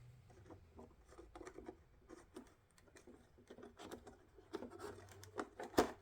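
Faint, irregular clicks, taps and scrapes of hands working at a plastic headlight housing, with a couple of sharper clicks near the end.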